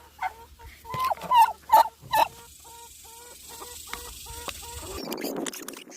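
Domestic fowl calling: several loud squawks in the first two seconds, then a string of short, evenly spaced clucks at one pitch.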